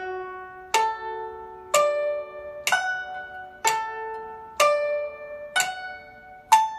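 Guzheng playing a slow broken-chord exercise: single notes plucked about once a second, seven in all, each ringing and fading before the next.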